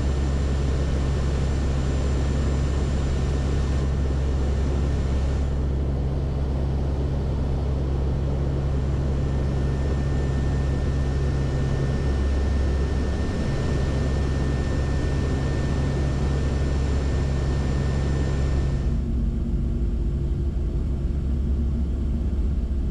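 The four turboprop engines and propellers of a WP-3D Orion aircraft drone steadily as heard inside the cockpit, with a thin steady whine above the noise. Near the end the drone changes abruptly to a duller, lower sound as the aircraft comes in on final approach to a runway.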